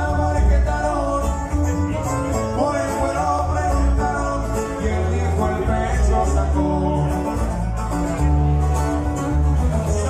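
A live band playing: plucked guitars over a deep, steady bass line.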